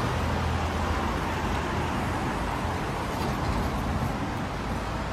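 Steady road-traffic noise: a low engine rumble under an even hiss, with no single event standing out.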